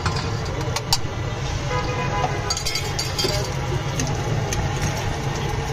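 Cooking utensils clinking and tapping in short, irregular strikes, a sharp one about a second in and a cluster around the middle, over a steady low traffic rumble.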